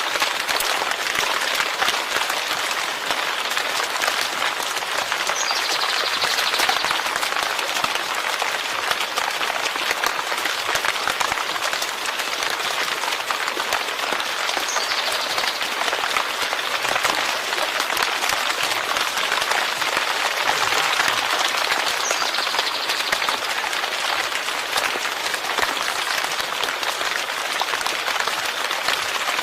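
Steady heavy rain: a dense, even hiss of countless drops that holds at the same level without let-up.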